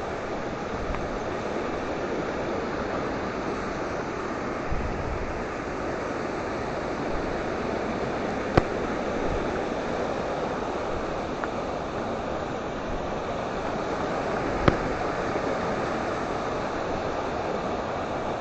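Rapids of the Majaceite river rushing steadily. Two sharp clicks cut through, one about halfway and one about three-quarters of the way in.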